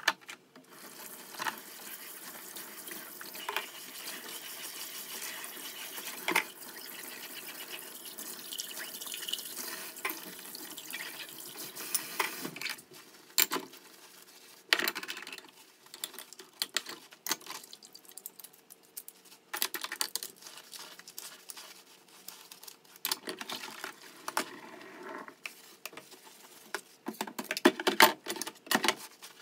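Kitchen tap running into a stainless steel sink while dishes are scrubbed with a sponge, with clinks of dishes and utensils. The steady run of water fades out about twelve seconds in. After that come scattered clinks and knocks of dishes being handled, with a quick run of them near the end.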